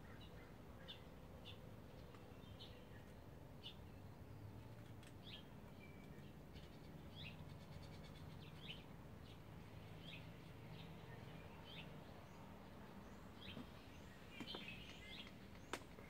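Faint, short, high chirps from a small songbird, repeated roughly once a second over a low steady hum, with a sharp click near the end.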